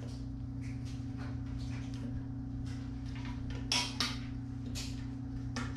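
Light clicks and rattles of plastic wiring-harness connectors being worked apart by hand, with two sharper clicks a little before four seconds in and another near the end, over a steady low hum.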